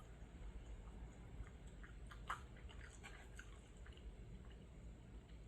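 Quiet, close-miked chewing of food, with a few small soft clicks, the sharpest a little over two seconds in.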